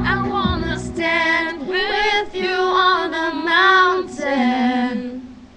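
Girls' voices singing a pop ballad along with a recorded track. The backing music drops out about half a second in, and the voices carry on alone, fading out shortly before the end.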